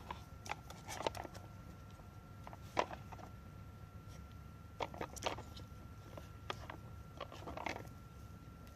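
Nina Ottosson Dog Tornado plastic treat puzzle being worked by a puppy: scattered clicks and short scrapes as its stacked plastic tiers are pushed round and knock together.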